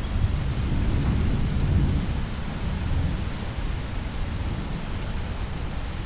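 Steady rain, with a low rumble of thunder that swells about a second in and eases off after two seconds.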